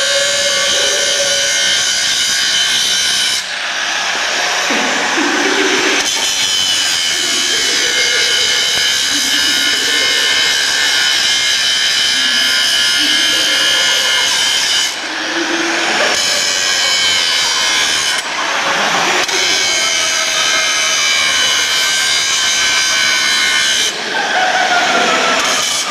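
Angle grinder with an abrasive disc grinding metal: a loud, steady, high whine over a rough grinding hiss. The sound changes briefly about four times.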